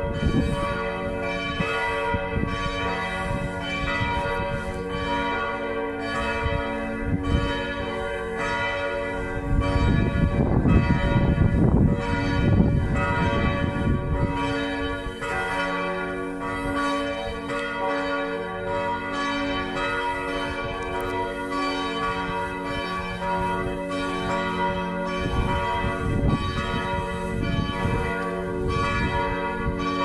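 Felsenkirche church bells ringing continuously, with many overlapping strikes whose tones hang on. A loud low noise swells up about ten seconds in and dies away by about fourteen seconds.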